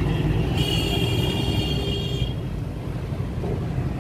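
Street traffic noise, a steady low rumble with hiss, mixed with wind on the microphone. A high thin tone sounds for about two seconds from about half a second in.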